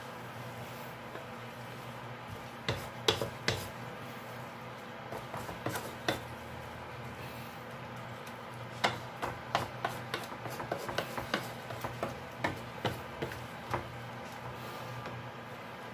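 Wooden spatula stirring sautéed kangkong and sardines in a metal pan, knocking and scraping against the pan: a few knocks around three and six seconds in, then a busy run of them in the second half. A steady low hum runs underneath.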